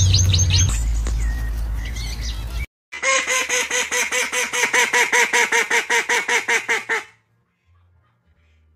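Duck quacking in a fast, even run of about five calls a second for roughly four seconds, then stopping abruptly. Before it come a few quick high chirps over a low rumble.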